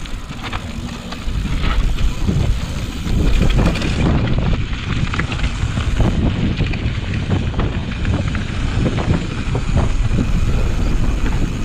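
Wind buffeting the camera's microphone as a mountain bike rolls downhill over a rough dirt and gravel track, with many small knocks and rattles from the bike and tyres on the bumps.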